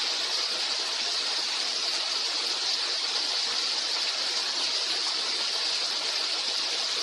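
Small jungle waterfall splashing: a steady rush of falling water, starting suddenly and holding even throughout.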